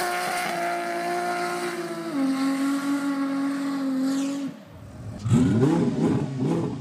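Race car engine sound effect over the closing logo. The engine holds steady high revs, drops to a lower pitch about two seconds in and cuts off, then near the end gives a quick series of throttle blips that rise and fall in pitch.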